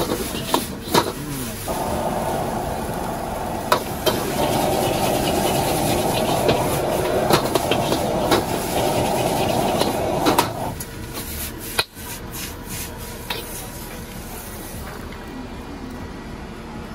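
Street-food wok cooking: a steady rushing noise starts about two seconds in and cuts off suddenly about eleven seconds in, with sharp metal clinks of utensils against the wok throughout.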